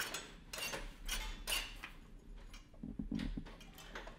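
Scattered light metallic clicks and clinks as the throttle linkage of a four-engine go-kart is worked by hand during a throttle sync check.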